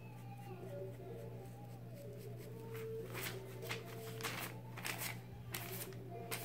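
Tint brush stroking hair lightener onto hair laid on a foil sheet: a string of short, soft rustles and scrapes in the second half, over faint steady background music.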